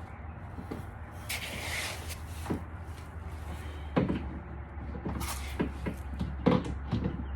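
Hands working on a car door's handle assembly: scattered clicks and knocks of parts being handled and fitted, with a short rustle about a second in and several sharper knocks in the second half, over a steady low hum.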